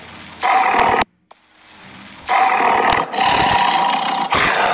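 Tiger roar sound effect played by an AR flashcard app: one short roar about half a second in, then three more roars close together from a little after two seconds.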